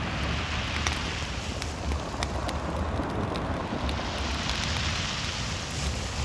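Wind outdoors: a steady hiss that swells twice, with wind buffeting the microphone and scattered light ticks throughout.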